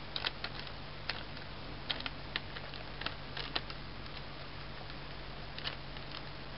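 Light scattered clicks and scratches of a kitten's paws and claws batting and catching on a cloth towel and a crinkly plastic bag, a quick cluster over the first few seconds and a few more near the end, over a steady low hiss.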